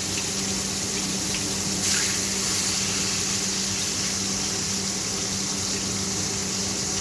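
Beef steak sizzling in hot oil in a frying pan on high heat: a steady hiss that swells briefly about two seconds in.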